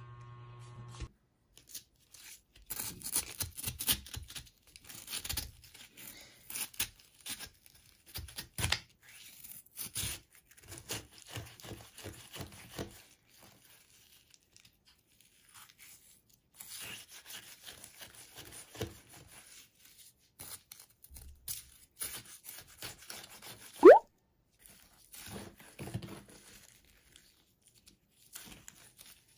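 Plastic spoon scraping and crunching through shaved ice in a plastic cup as mais con yelo is stirred, in uneven bursts with a pause partway through. Late on comes one short, sharp rising squeak, the loudest sound.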